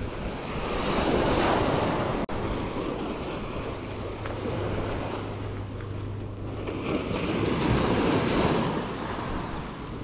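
Gentle ocean waves breaking on a sandy shore, the wash swelling up twice, about a second in and again near the end, with wind rumbling on the microphone.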